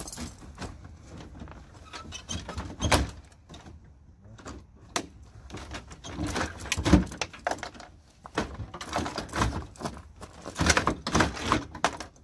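Damaged plastic front grille of a crashed Chevrolet Impala being pried and wrenched loose: irregular plastic clicks, knocks and rattles as the clips resist, loudest in bursts about three, seven and eleven seconds in.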